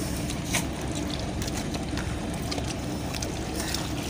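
Steady hum of a fishing boat's engine running, with a few light knocks and slaps of fish being handled on the deck; a sharper knock about half a second in.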